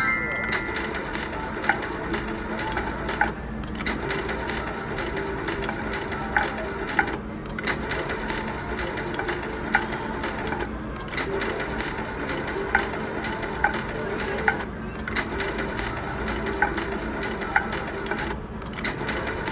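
Cash Machine slot machine spinning its reels again and again, a ticking, ratchet-like spin sound that breaks off briefly about every four seconds as each spin ends and the next begins, over the steady din of a casino floor.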